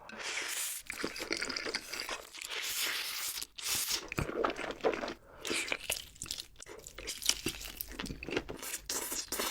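Close-miked crunching and chewing of crispy fried food, with repeated bites cracking through a crunchy crust.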